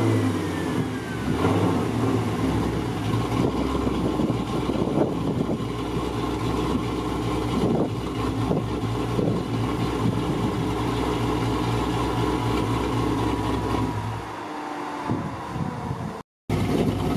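Pontiac G8 GT's V8 engine running at a fairly steady speed, with a faint whine slowly falling in pitch. The engine note drops away about fourteen seconds in, and a moment of complete silence follows just before the end.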